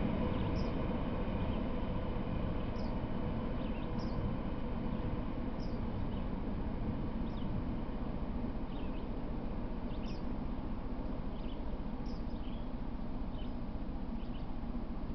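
Short high bird chirps, repeated irregularly every second or so, over a steady low rumble that slowly fades.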